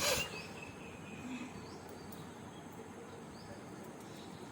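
A short breathy burst at the very start, then quiet background with faint, short high chirps about once a second.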